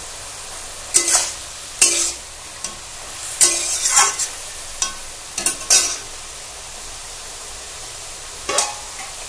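A steel spatula scraping and clattering against a metal kadai as leafy bottle-gourd greens and vegetables are stirred: a run of quick irregular strokes, a pause, then one more stroke near the end, over a steady frying sizzle.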